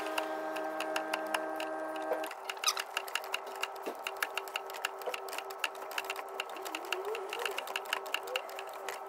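Ratchet clicking in runs of quick clicks as a long-handled ratchet on the crank pulley bolt turns a 2.5 TDCi diesel engine over by hand. The engine is being rotated after a new timing belt was fitted, to check that the timing marks line up. A steady background tone is heard, and it changes about two seconds in.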